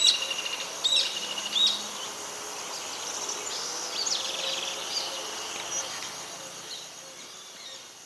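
Small birds chirping and calling in short rising and falling notes over a steady high insect hum; the calls thin out after about five seconds.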